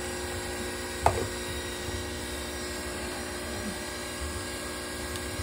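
A single sharp plastic click about a second in as the clear lid is set onto the milk frother's jug, over a steady low background hum.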